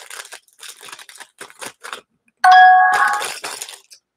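A loud electronic notification chime of several tones sounds about two and a half seconds in and fades over about a second. Before it, light clicks and rustling of things being handled.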